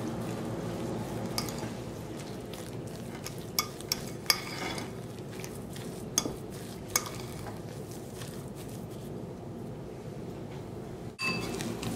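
Metal fork stirring and scraping through a stiff mashed-potato, egg and cheese mixture in a glass bowl, with about six sharp clinks of the fork against the glass in the first seven seconds. A steady low hum runs underneath.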